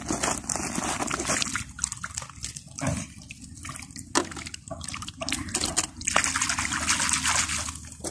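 Water sloshing and dripping as a wire-mesh fish keep basket is worked in shallow water to put a fish in, with irregular small splashes.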